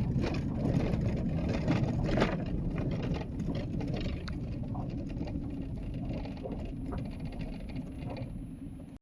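Low rumble of a car heard from inside the cabin as it drives, with a few faint knocks, easing off a little after about three seconds.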